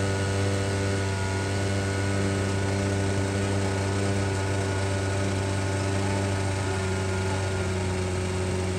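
A small motor-driven blower running steadily with an even hum, forcing air into a burning steel drum, over a steady rush of air and flame.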